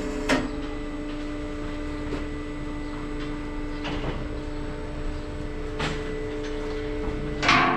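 Steel gates and bars of a cattle crush and race clanking four times, the last and loudest near the end with a short metallic ring, over a steady mechanical hum.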